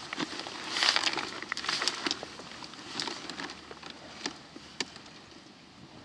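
Footsteps on rocky ground: irregular clicks and scrapes of boots on stone, with a burst of scuffing about a second in and another around two seconds.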